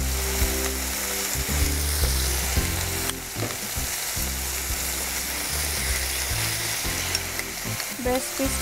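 Honey-lemon marinated chicken pieces frying in hot butter oil in a frying pan, a steady sizzle.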